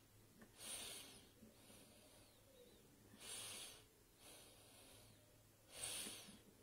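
Faint breathing close to the microphone: three short, hissy breaths about two and a half seconds apart in an otherwise quiet room.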